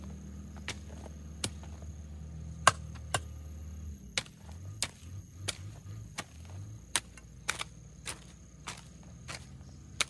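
A hand tool chopping into grass and soil with repeated sharp strikes, roughly one every half second to second, over a low steady hum.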